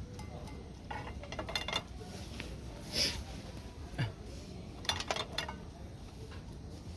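Cookware and eating utensils clinking and knocking together in several separate short clinks, a few of them in quick succession.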